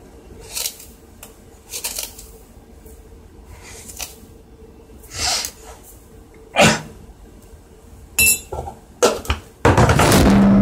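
Kitchenware being handled while making coffee: scattered short clinks and knocks of a mug, spoon and sugar container. There is a sharp knock about six and a half seconds in, and louder, longer handling noise near the end.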